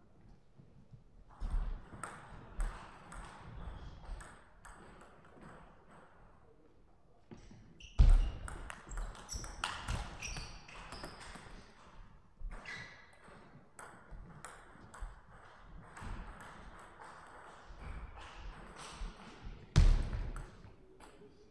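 Table tennis ball clicking back and forth off the bats and the table in quick rallies. Two heavy thumps stand out as the loudest sounds, about a third of the way in and near the end.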